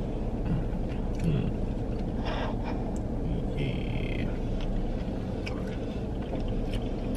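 Steady low hum of a vehicle cabin, the van's engine or climate fan running while parked, with light clicks of plastic forks against plastic takeout containers and a brief squeak a little past the middle.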